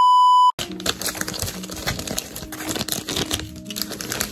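A short, loud, high-pitched electronic beep that cuts off suddenly about half a second in, then clear plastic packaging crinkling as it is handled.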